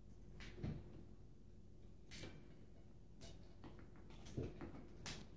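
Faint, scattered clicks and small cracks of cooked king crab legs being pulled apart and picked at by hand, about five in a few seconds.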